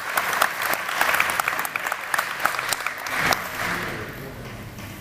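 Audience applauding, the clapping thinning out and dying away in the last second or two.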